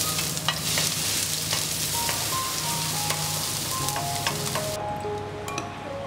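Minced shallots and garlic sizzling in hot oil in a wok, with light clicks and scrapes of a wooden spatula stirring them. The sizzling cuts off abruptly near the end.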